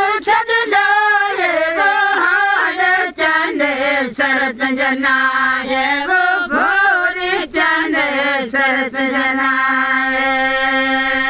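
Women singing a folk song, voices wavering and sliding in ornamented lines, settling near the end into a long held note.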